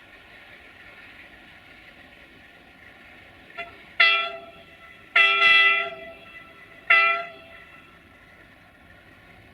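Air horns of a CFR 060-DA (LDE2100) diesel-electric locomotive sounding: a faint short toot, then three loud blasts about a second apart, the middle one the longest.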